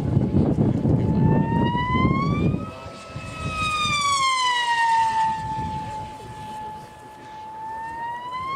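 Electric hotliner RC plane making high-speed passes: a high-pitched motor-and-propeller whine that swoops up and down in pitch as it approaches and flies away. The pitch rises about two seconds in, falls away through the middle, then rises again near the end. A low rumble sits under it for the first two or three seconds.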